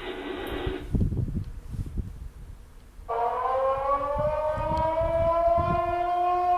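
Recording of an air-raid siren played back, starting about three seconds in and winding up in pitch before holding a steady wail. Before it, a brief snatch of another noisy sound and some low knocks of handling.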